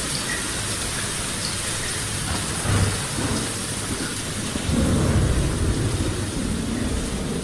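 Steady rain hissing, with low rolling thunder: a short rumble about three seconds in and a longer, louder one from about five seconds.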